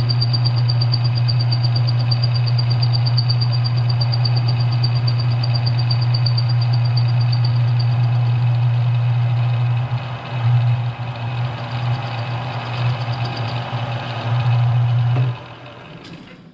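Smithy CB-1220XL lathe-mill combo running, its electric motor giving a steady hum with a high whine while the spindle turns a metal workpiece for a facing cut. About ten seconds in the sound turns uneven, and a few seconds from the end the machine is switched off and winds down.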